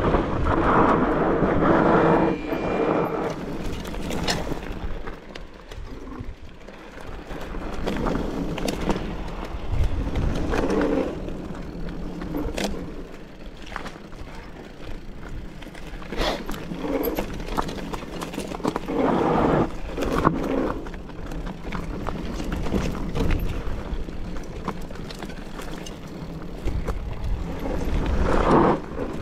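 Mountain bike riding over rough trail: wind rushing on the microphone, with the bike rattling and frequent short knocks from the wheels on stones.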